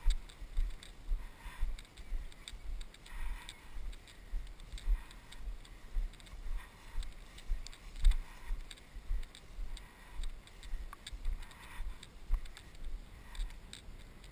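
Footsteps of a person walking through tall grass, a low thud about twice a second picked up through the carried camera, each step with a soft swish of grass.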